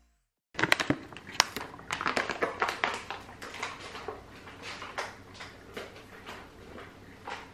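Coffee draining through the paper filter of a Chemex and dripping into the glass carafe: irregular sharp ticks and small drips, quick and close together at first and then further apart.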